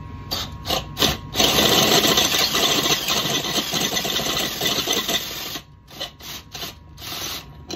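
Cordless Craftsman drill spinning a Klein step drill bit (unibit) as it cuts into a metal hitch receiver, widening the hole toward 5/8 inch for a hitch pin. Three short bursts, then one long steady cutting run of about four seconds, then a string of short bursts near the end.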